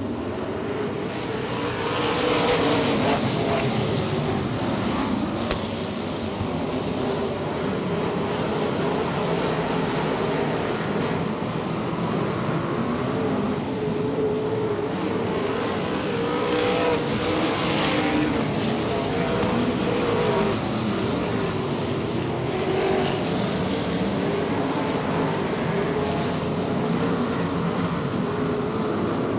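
A field of 360 wingless sprint cars racing, their 360-cubic-inch V8 engines running together, pitch rising and falling as the cars accelerate and lift. The noise swells about two seconds in.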